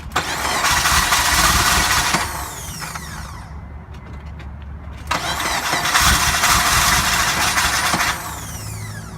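2002 Acura RSX Type S 2.0-litre four-cylinder engine catching after a new fuel pump was fitted to cure a no-start, revved twice and each time falling back to a lower, steady run.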